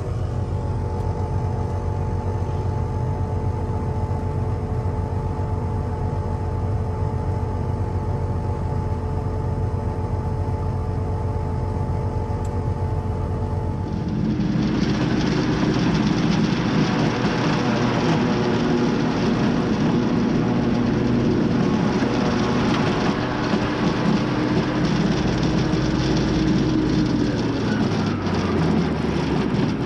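Tractor engine running steadily, heard from inside the cab. About halfway through, a louder, rougher forage-harvester sound takes over, the chopper running and blowing corn silage into the wagon. Near the end a tone drops in pitch as the machine winds down after a shear bolt breaks.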